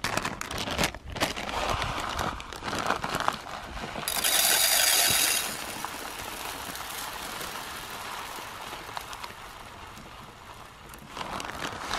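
Uncooked rice poured from a plastic bag into an Alocs camping cook pot: the bag crinkles and scattered grains tick against the pot, then a loud hiss of rice rushing in for about a second and a half, easing to a steadier trickle of grains.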